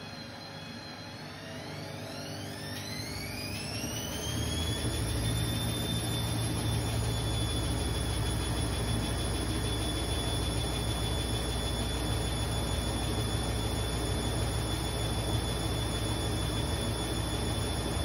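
Candy front-loading washing machine speeding its drum up: a motor whine rises over the first few seconds, then holds at a steady pitch over a low rumble as the drum spins. The drum is packed with excess suds, a suds lock.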